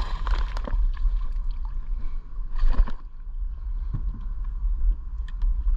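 A steady low rumble of wind on the microphone, with a few dull knocks and scattered small clicks from handling gear in a small boat or kayak.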